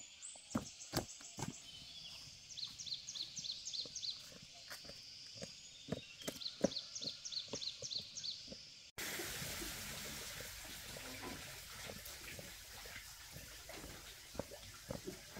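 Outdoor ambience: scattered knocks and clicks with short runs of high, quickly repeated chirps. About nine seconds in it cuts abruptly to a steadier hiss with clicks still in it.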